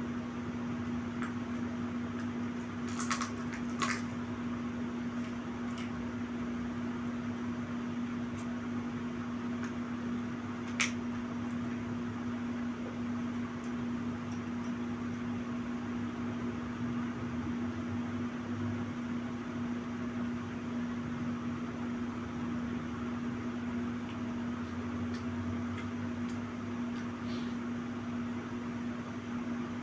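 Steady mechanical hum with one constant low tone under a hiss. Over it come a few light clicks of chopsticks against a plastic food tray: two about three to four seconds in and a sharper one near eleven seconds.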